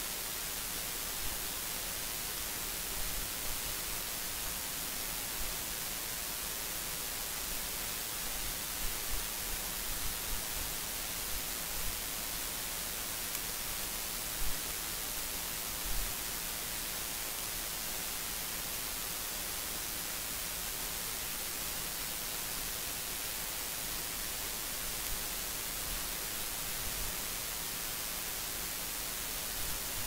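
Steady hiss with no other sound, strongest in the high frequencies, and a few faint low bumps in the middle.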